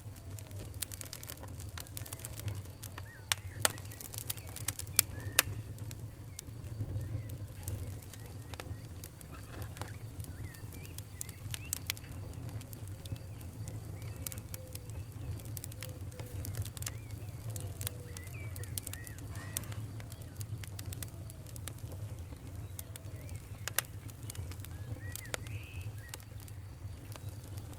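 Wood fire in a fireplace crackling, with sharp pops at irregular moments over a steady low rumble; the loudest pops come in a cluster about four to five seconds in. Faint short chirp-like squeaks come and go throughout.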